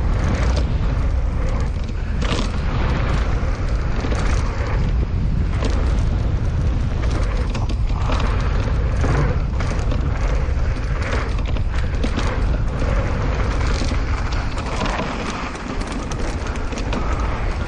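Mountain bike ridden down a rough dirt trail: steady wind rumble on the microphone, with the bike clattering and knocking over bumps.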